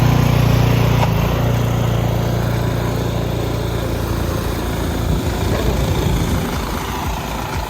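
A motor's low, steady rumble that fades away after about four seconds, leaving a rougher, uneven noise.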